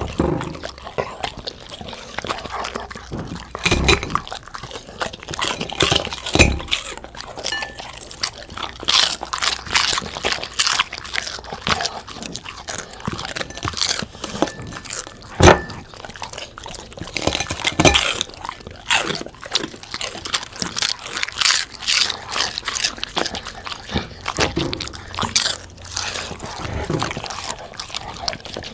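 Large dog chewing and crunching its food: a close, steady run of crisp crunches and bites, with one sharp, loud crack about halfway through.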